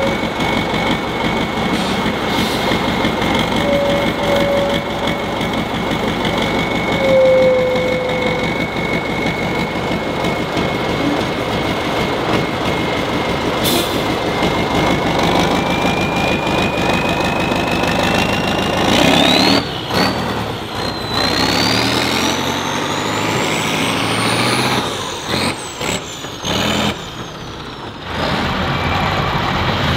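Heavy off-road trial truck's engine running hard, with a high whistle over it that holds steady and then climbs in pitch in the second half. The sound dips and cuts out briefly several times near the end.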